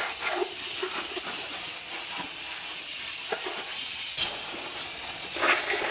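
Water jetting from a garden hose spray nozzle, a steady hiss and spatter as it strikes a riding mower's engine and frame, with a few brief sharper splashes.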